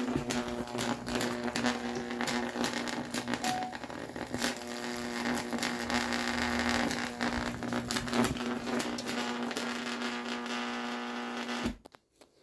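A microwave running with a steady electrical hum and crackling throughout, then switching off abruptly near the end.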